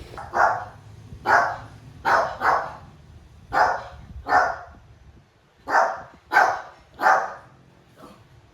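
A dog barking: about nine single barks at uneven spacing, some in quick pairs.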